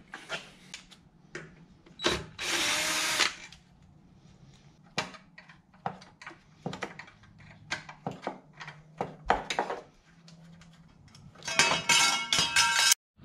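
Scattered clicks and scrapes of hand work at the U-joint access opening of a John Deere 2320 compact tractor, as the area is cleaned out. A power tool runs in two short bursts, one about two seconds in and a longer one near the end.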